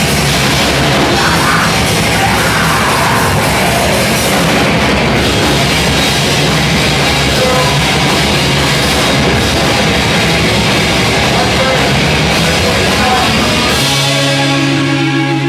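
Loud, heavy rock music with drums and distorted guitars. Near the end the dense playing drops away, leaving a held, ringing chord.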